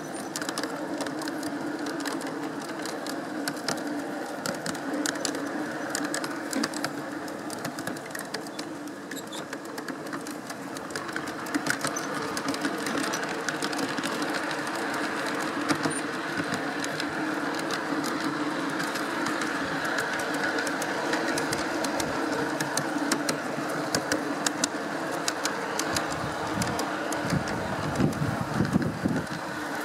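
Large-scale garden railway train running, heard from on board one of its wagons: a steady mechanical running noise with a rapid, uneven clicking of wheels over the track. Gusts of wind rumble on the microphone near the end.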